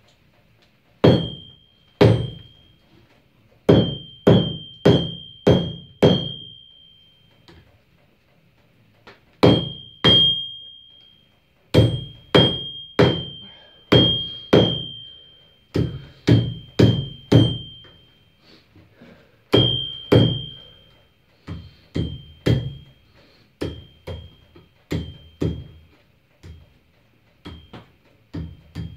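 Hand hammer striking a red-hot damascus billet on a steel anvil to forge-weld it. About thirty blows come in bursts of two to six with short pauses, each followed by a brief high ring from the anvil, and the blows grow lighter in the last third.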